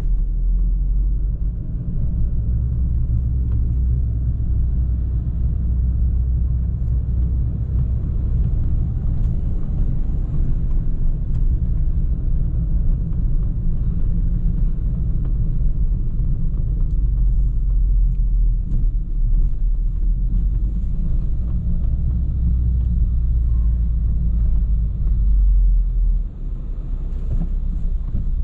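Low, steady rumble of a VW Golf R's engine and tyres as the car drives slowly, easing off briefly near the end.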